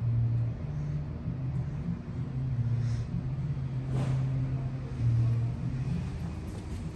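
Low hum and rumble inside a Schindler high-rise elevator car travelling upward, swelling and easing, with a couple of faint clicks.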